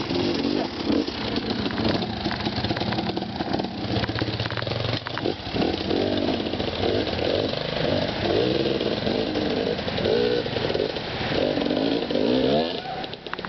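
Dirt bike engine running as it rides over rough trail, its pitch rising and falling with the throttle, with a few knocks about five seconds in and a rising rev near the end.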